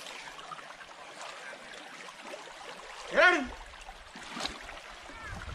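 Shallow stream water rushing steadily as an elephant is bathed in it, with one short shouted human call, rising then falling in pitch, about three seconds in.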